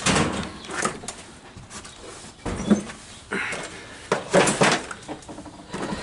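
Irregular knocks, scuffs and rustles of someone walking slowly and unevenly across the garage while carrying the camera: footsteps and handling noise.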